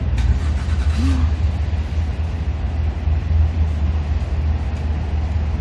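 Steady low rumble of a car's engine and road noise.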